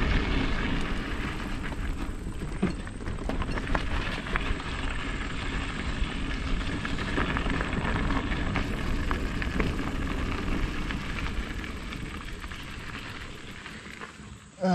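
Bicycle rolling along the trail: a steady rumble of tyres and riding wind on the microphone, with a few light clicks and rattles from bumps, getting quieter over the last few seconds as the bike slows.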